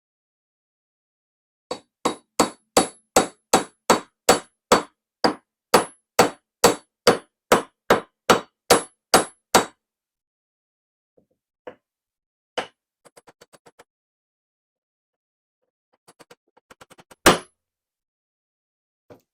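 Hammer driving an oil seal into a Briggs and Stratton small-engine housing: about twenty evenly spaced metallic strikes, roughly two and a half a second. Then a few scattered lighter taps, and one hard strike near the end.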